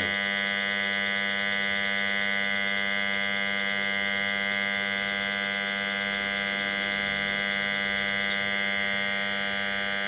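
Gas alarm panel in alarm: a steady electric buzz with a fast-pulsing high beep over it, which stops shortly before the end while the buzz carries on. The alarm is signalling a detected LPG leak, set off here by gas from a lighter held at the detector.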